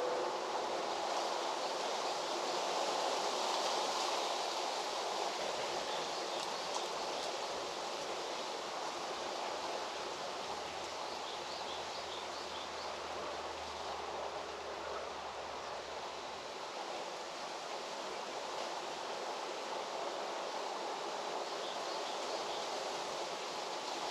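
Steady outdoor rural background noise, with faint short high chirps now and then and a low hum for a few seconds in the middle.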